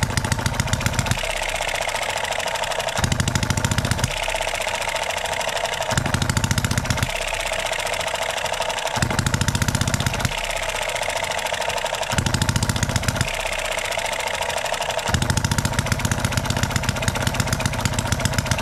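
Enjomor 6cc single-cylinder four-stroke hit-and-miss model engine running too rich: about a second of rapid firing alternates with roughly two seconds of coasting on its flywheels, a cycle repeating about every three seconds, with its valve gear ticking steadily throughout.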